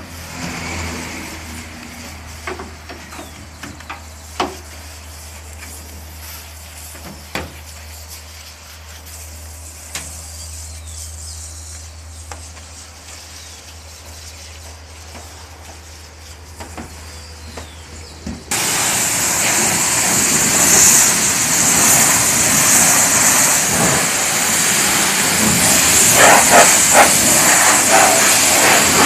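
Coin-operated washer running with a steady low hum and scattered clicks. About two-thirds of the way in, a loud rushing hiss of water starts abruptly and keeps going.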